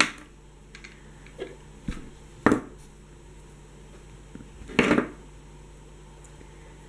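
Hands handling a small ring of glass seed beads and its nylon beading thread: a few short rustles and scrapes, the loudest about two and a half and five seconds in.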